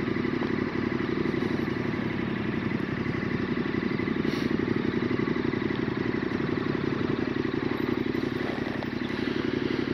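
KTM 1290 Super Adventure S V-twin engine running at low revs with a steady pulsing beat as the motorcycle rolls slowly to a halt and ticks over.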